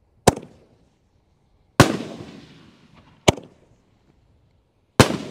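Four sharp bangs about a second and a half apart from 7-inch canister firework shells being fired, each fading out in a short echo.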